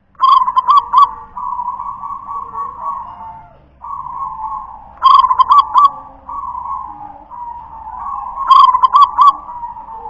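Zebra dove (perkutut) cooing its song: three loud phrases of quick stuttering notes, about a second in, near the middle and near the end, with softer cooing at the same pitch in between.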